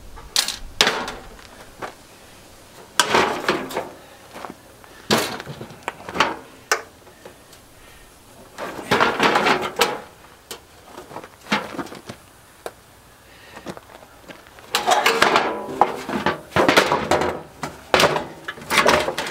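Clothes dryer's sheet-metal base panel, with its drive motor and blower housing mounted on it, clanking and rattling as it is handled and turned over: a series of irregular metal knocks and scrapes, busiest near the end.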